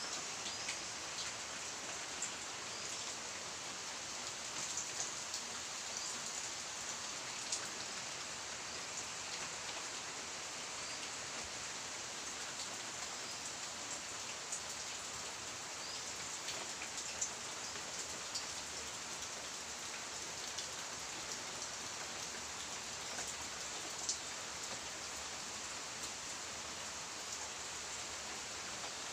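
Steady rain, an even hiss scattered with light drop ticks and an occasional louder click.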